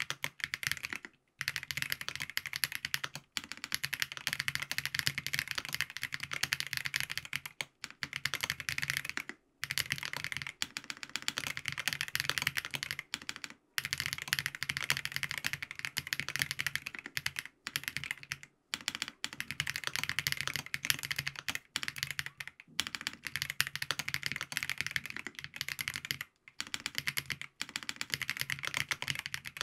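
Fast, continuous typing on a FancyTech Origin 65A mechanical keyboard with lubed Geon Black switches, a foam-dampened POM plate and ABS keycaps: rapid keystrokes with brief pauses every few seconds.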